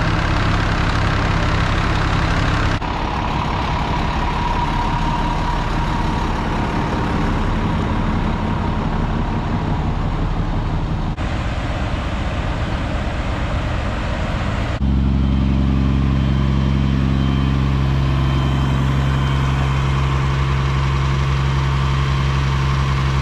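Fire engines idling steadily, a deep engine hum that changes abruptly a few times as shots cut, becoming louder and deeper from about 15 seconds in.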